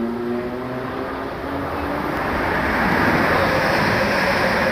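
New Greater Anglia electric passenger train passing through the station at speed without stopping: the rushing rumble of wheels on rail builds over the first few seconds and stays loud as the carriages sweep by.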